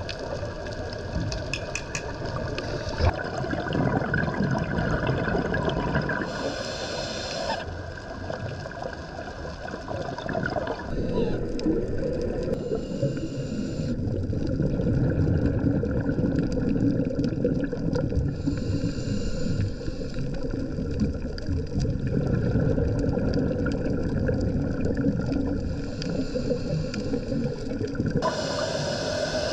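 Muffled underwater noise from a camera's housed microphone: a steady rush and gurgle of moving water, changing in tone abruptly a few times.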